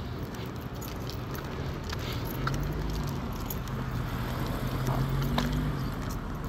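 New Flyer XDE40 hybrid diesel-electric transit bus under way: a steady drivetrain drone with a low hum that comes up about two seconds in and grows slightly louder, and scattered small rattles and clicks from the body and fittings.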